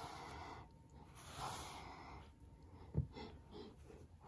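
Soft breathy noises while plastic toy animal figures are moved about on a carpet, with a single low thump about three seconds in.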